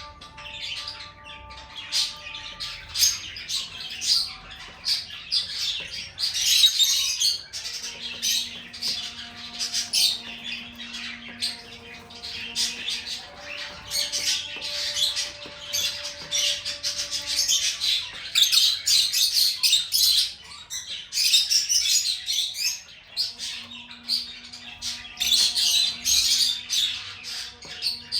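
Pet lovebird chattering: a rapid, unbroken stream of short high chirps and squawks, growing louder in several stretches.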